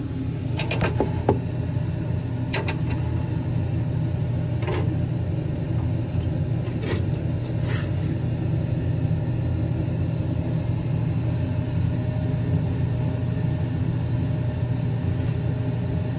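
Steady low machine hum, with a few light metallic clinks and knocks in the first eight seconds as a 4CX20000A power tube is worked up out of its socket.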